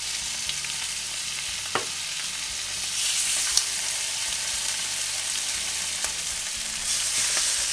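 Bacon and laverbread-oat patties sizzling in hot bacon fat in a frying pan. The sizzle gets louder about three seconds in, as a patty is slid into the fat, with a few light clicks of the metal spatula.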